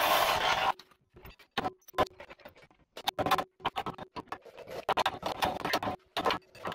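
A short loud rush of noise at the start, then rapid irregular metallic clicks and knocks of tools working on a leaf-spring shackle.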